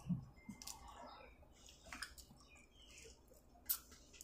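Faint eating sounds: scattered soft clicks and mouth smacks from hand-peeling and chewing boiled shrimp, the loudest a short sharp click near the end.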